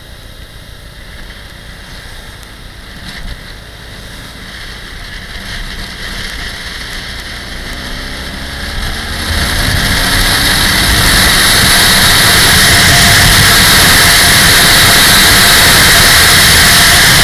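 Motorcycle engine rising in pitch as the bike accelerates out of a bend. About halfway through, loud wind rush over the camera microphone takes over and stays as the bike holds speed on the straight.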